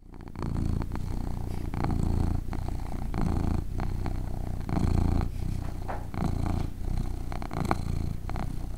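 A domestic cat purring: a steady low rumble that swells and eases in a regular rhythm, roughly once or twice a second, with each breath in and out.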